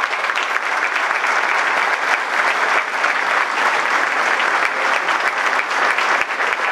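A crowd of people applauding steadily.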